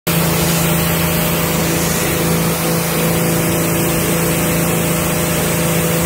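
AiPower pressure washer running with its jet spraying water, a steady machine hum under the loud hiss of the spray.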